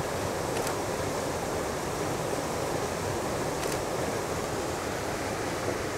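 Small waterfall cascading over rocks into a creek: a steady rush of running water.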